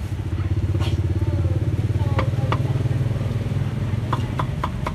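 A motorcycle engine running close by with a steady low drone, and a meat cleaver chopping on a round chopping block: a couple of chops in the middle, then a quick run of about four chops a second near the end.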